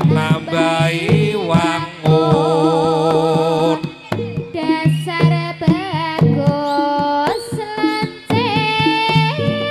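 Live jaranan ensemble music: hand drumming and a steady low gong-like drone under a wavering, vibrato-laden lead melody.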